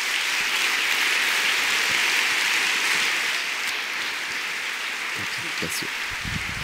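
Large audience applauding, strongest in the first few seconds and slowly tapering off toward the end.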